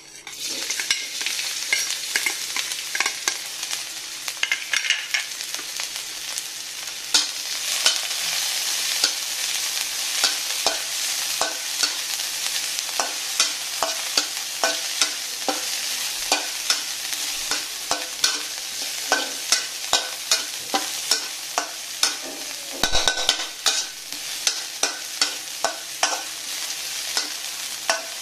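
Food sizzling in hot oil in a pan, starting abruptly, while a utensil stirs it, with frequent sharp knocks and scrapes against the pan and a louder clatter near the end.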